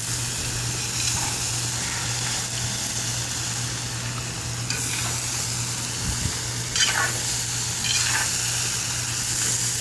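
Carrots, meat and onions sizzling steadily in hot oil in a large cast-iron kazan, with a few short scrapes of a metal skimmer stirring them against the pot.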